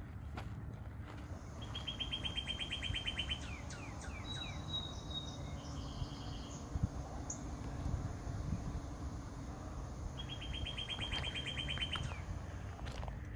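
Forest songbirds singing. One bird gives a fast, even trill of about ten identical notes a second on a single pitch, lasting about two seconds; it comes once near the start and again near the end. Other birds add short higher notes in between.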